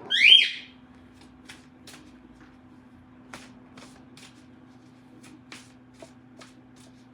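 Oracle cards being shuffled and handled, with soft scattered snaps and clicks of the card edges. It opens with a short, loud, high-pitched rising squeak, and a steady low hum runs underneath.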